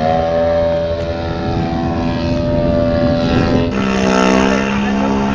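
The engines and propellers of large-scale radio-controlled aerobatic planes running steadily in flight. About three and a half seconds in, the engine note changes abruptly to a different plane's steady note.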